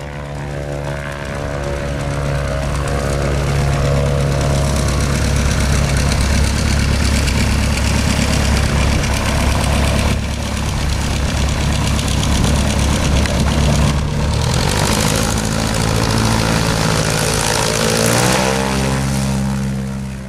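Propeller engine of a small flying boat running steadily as it taxis on the water, then opening up with a step up in pitch near the end for the takeoff run. The sound cuts off abruptly at the end.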